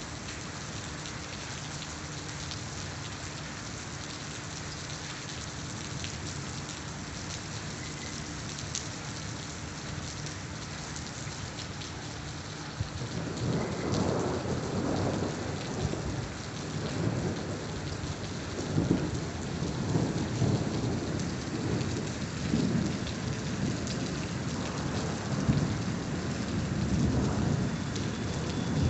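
Heavy rain falling steadily. About halfway through, low rolling thunder sets in and rumbles on and off, swelling and fading, to the end.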